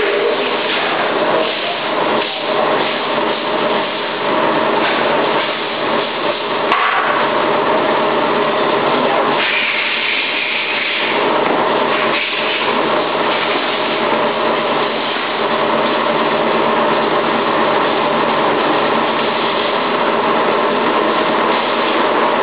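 Machine-shop noise: machinery running steadily with a constant hum, and a brighter hiss for a couple of seconds about ten seconds in.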